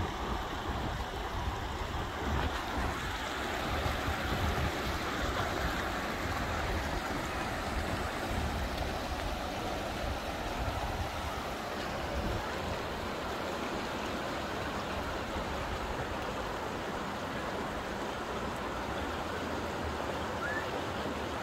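Creek water rushing steadily over rocks, with a low rumble underneath that fades about halfway through.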